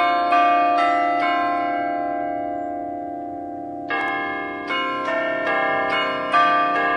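Bells playing a slow tune: three strikes, then they ring on and fade for about two and a half seconds before a new run of strikes about four seconds in.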